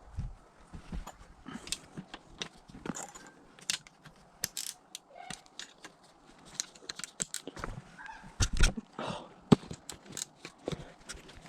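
Irregular metallic clicks, clinks and knocks of hand tools working on a dirt bike's handlebar mounts during disassembly, loudest a little past the two-thirds point.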